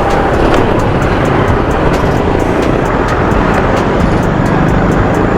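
Motorcycle engine and road noise heard while riding, mixed with steady wind rush on a camera-mounted microphone. A faint regular ticking runs through it, about four times a second.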